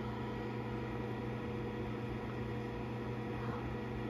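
Egg incubator running with a steady hum of several constant tones over a faint hiss.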